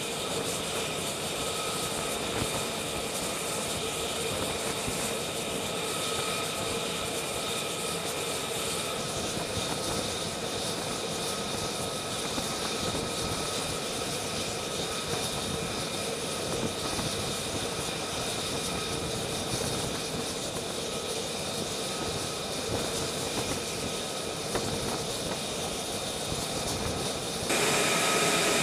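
Steady jet engine noise on an aircraft carrier flight deck, a rushing roar with a steady high whine over it, jumping louder and brighter about a second before the end.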